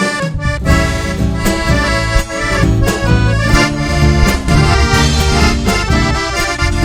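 Live Chilean cueca music: accordion leading, with the full band's bass and percussion coming in together just after the start and keeping a steady beat.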